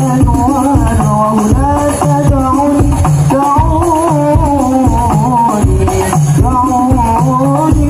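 Hadroh ensemble playing sholawat: rebana frame drums beat a steady, driving rhythm while a wavering, ornamented melody line carries over the top.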